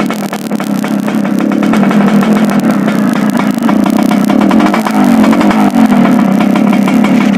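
Yamaha RX-King's single-cylinder two-stroke engine running steadily with a throaty exhaust, its carburettor set up for a growling ('ngorok') note; the sound grows a little louder about two seconds in.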